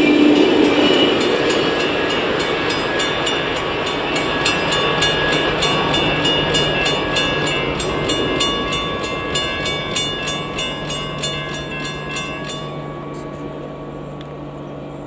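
A grade-crossing bell rings rapidly and steadily while the tail of an Amtrak passenger train rolls away and its rumble fades. The bell stops near the end.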